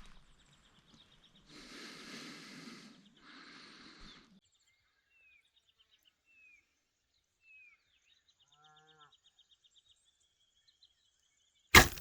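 Quiet rural ambience: two breathy noise bursts in the first few seconds, then faint bird chirps and a fast trill in the middle, and a sharp, loud knock near the end.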